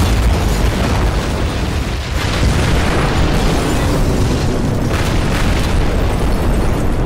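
Explosion sound effect: the heavy rumble of a blast continues with scattered crackles and slowly dies away near the end.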